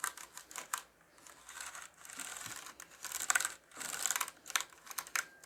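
A damp cloth rubbed in lengthwise strokes across a mechanical keyboard with its keycaps off: scratchy wiping strokes over the bare switches, broken by small clicks and rattles.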